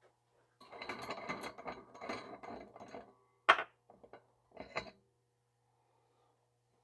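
Ratchet wrench clicking for about two and a half seconds as an Echo chainsaw's clutch is unscrewed with a three-prong clutch tool, followed by one sharp metal click and a few lighter clicks as the clutch parts come loose.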